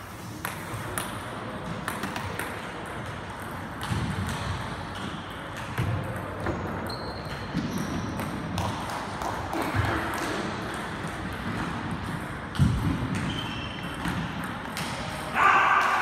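Celluloid-type table tennis ball clicking off bats and bouncing on the table in quick rallies, with thuds of players' feet on the wooden hall floor, the loudest a little before the last quarter.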